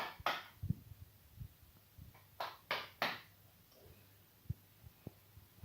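Faint, scattered handling sounds: a few short hissy rustles and several soft knocks.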